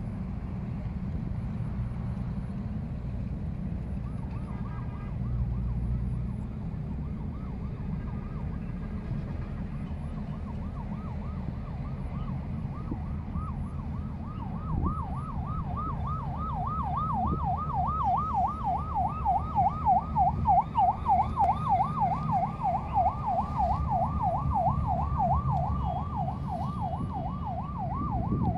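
A siren warbling, its tone sweeping up and down about four times a second, faint at first and louder from about halfway through, over a steady low rumble.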